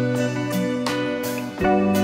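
Background music led by a plucked and strummed guitar with a steady rhythm.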